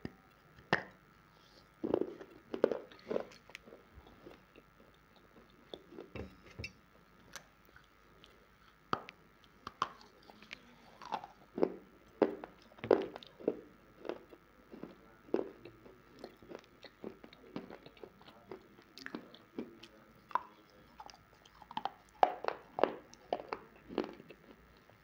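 Close-miked biting and crunching of dried clay, in many sharp, irregular crunches, about one or two a second, with chewing between them.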